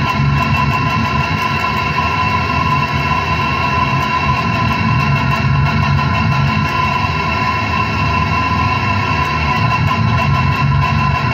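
Heavily distorted electric guitar played continuously, dense low-register riffing with no breaks.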